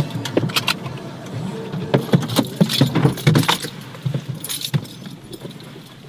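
A run of irregular clicks and rattles, busiest in the middle and thinning out near the end.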